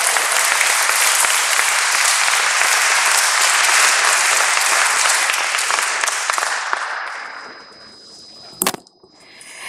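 Audience applauding, the clapping dying away about seven seconds in; near the end, a single sharp knock.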